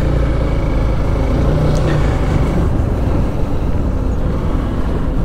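Motorcycle running on the road, a steady engine-and-road rumble with wind on the microphone.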